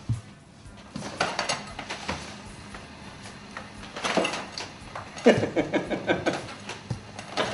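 A man laughing in short, repeated bursts about four seconds in and again a second later, with tableware clinking at the table.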